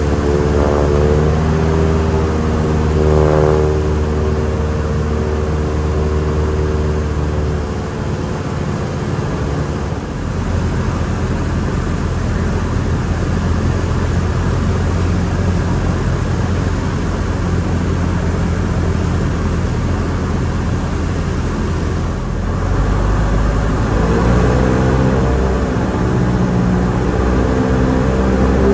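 Cessna 172's piston engine and propeller drone heard from inside the cabin, running steadily in flight, its tone shifting around eight seconds in and again near the end.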